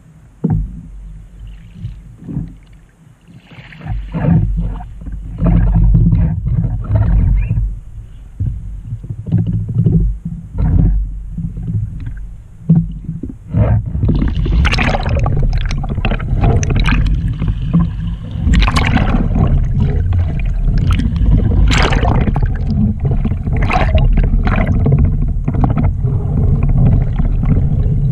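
Wind rumbling on the kayak's deck-mounted microphone with scattered splashes of water against the hull. About halfway in, heavy splashing and churning water take over as the kayak capsizes in a roll attempt that fails, leaving the microphone under water.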